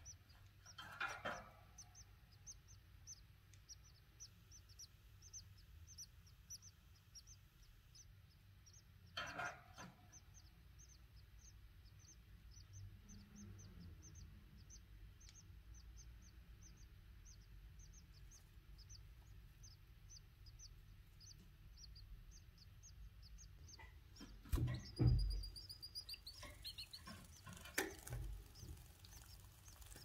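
Canary chicks cheeping faintly under the brooding hen, a quick run of short high peeps about three or four a second. Now and then the hen rustles and shifts in the nest, with a heavier bump and rustle near the end and a short high call just after.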